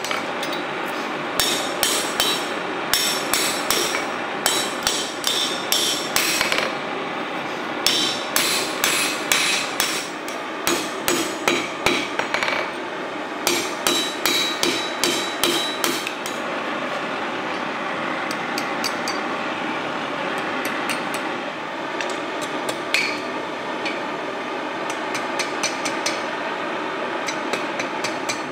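Hand hammer striking hot steel on an anvil in quick runs of blows, about three a second, each with a bright metallic ring. From about halfway the blows thin out to a few light taps over a steady rushing noise.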